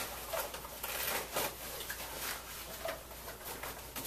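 Irregular rustling and scraping of a fabric backpack being handled and opened.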